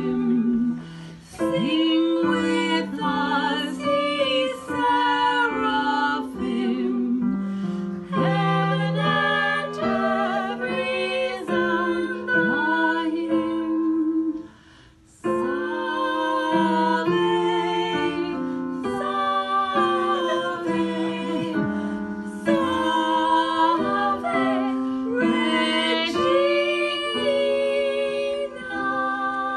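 Two women singing a hymn in two-part harmony, one voice on the melody and the other on a harmony line, with long held notes. The singing breaks off briefly about halfway through, then resumes.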